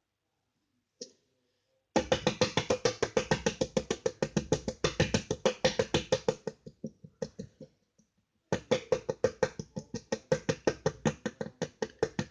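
Slime being poked very fast with fingertips: a quick, even run of sticky, clicking pops at about five or six a second. It stops for about two seconds and then starts again.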